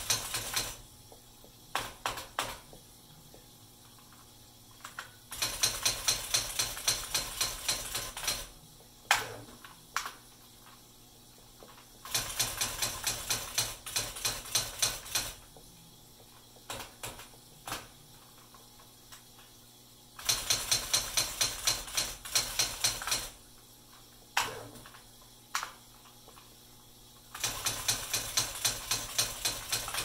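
IBM Wheelwriter 5 electronic typewriter typing in runs of a dozen or so fast, even clacks as its daisy printwheel strikes the paper, with a hiss under each run. Between runs come pauses with a few single strokes.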